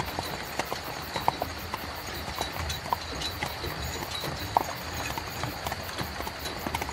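Horse-drawn carriage: a horse's hooves clip-clopping in an uneven rhythm of sharp knocks over a steady low rumble.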